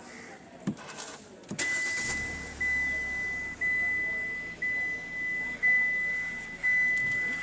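A few clicks, then a car's dashboard warning chime: a steady high beep repeating about once a second as the ignition is switched on for starting the engine.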